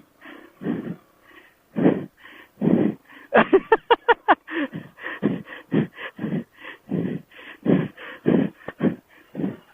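A person breathing hard and fast, about two breaths a second, with a short run of rapid voiced huffs about three and a half seconds in. The rider is winded from the exertion of riding a rough single-track trail.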